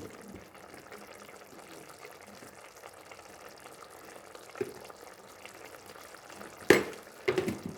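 Chicken curry gravy simmering in a pot, a steady faint bubbling hiss. Near the end a loud clank and a few quicker clinks of a utensil against the pot.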